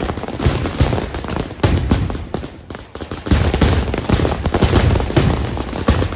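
Temple fireworks (vedikettu): a dense, rapid string of firecracker bangs over a heavy rumble, thinning out briefly about halfway through before resuming at full pace.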